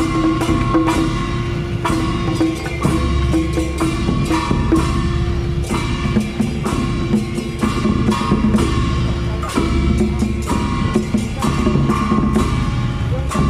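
Traditional temple procession percussion: a barrel drum beaten with sticks together with many hand-held bronze gongs and cymbals, struck in a dense, steady rhythm with the gongs' ringing tones sounding over the beat.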